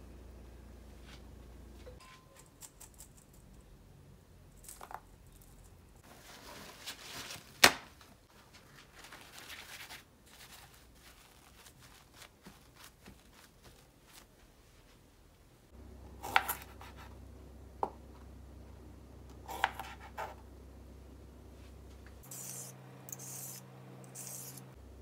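Kitchen handling sounds at a cutting board: scattered clicks and short rustling scrapes, with one sharp knock about a third of the way in. Near the end a vegetable peeler scrapes along a cucumber in three short strokes.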